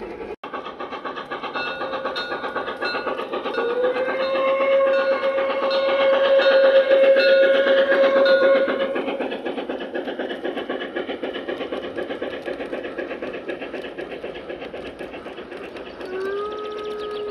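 G-scale garden railway train rolling along the track with a steady rhythmic clatter of wheels. Its onboard sound unit sounds one long whistle a few seconds in, lasting about five seconds and the loudest part, and a second, lower whistle starts near the end.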